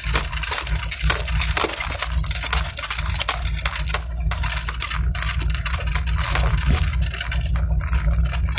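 Vehicle driving along a road: a steady low engine and road rumble, with frequent rattles and clicks from the cab.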